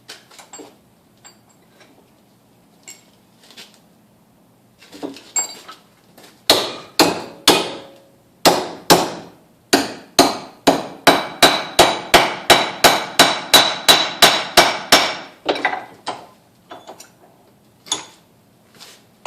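Hammer blows bending a strip for a draw-latch catch: a few light taps, then a long run of sharp, even strikes that speed up to about three a second before stopping, with a few scattered knocks after.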